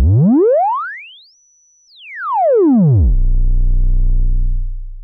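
Buchla Easel synthesizer oscillator sweeping in pitch as its pitch slider is moved: a low, buzzy tone glides smoothly up to a high, thin whistle, holds there for about half a second, then glides back down and holds low before fading near the end.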